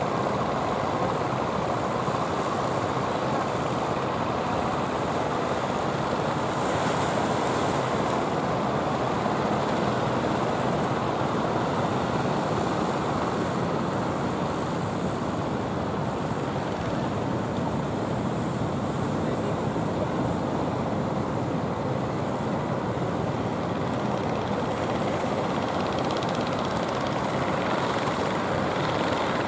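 Steady, even noise of surf and wind mixed with the engines of wooden fishing boats running through the inlet.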